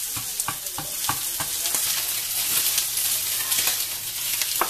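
Fish belly fillets frying on a hot griddle with a steady sizzle. Over it, a chef's knife chops red chilli on a plastic cutting board about three times a second for the first two seconds.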